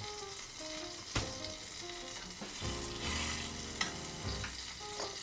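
Butter melting and sizzling in a small stainless-steel saucepan over a gas flame, heated until it bubbles, with a few sharp pops. The hiss swells about three seconds in.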